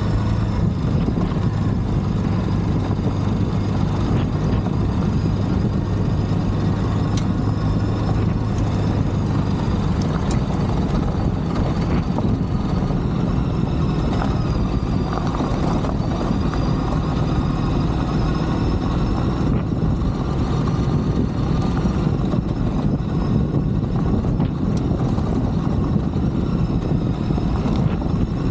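Ducati DesertX's 937 cc V-twin engine running steadily at low road speed on a gravel track, mixed with even noise from the tyres and wind.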